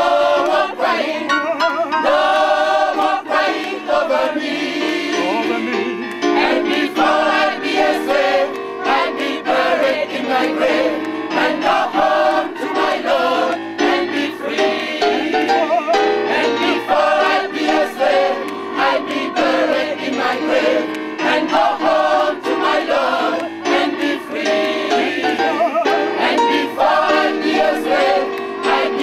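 Gospel choir singing in full voice, with electric keyboard accompaniment and a steady run of hand claps.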